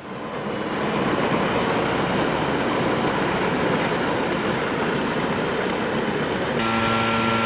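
Heavy road-works machinery running: a dense engine rumble, which changes abruptly about six and a half seconds in to a steady engine hum with a clear pitch.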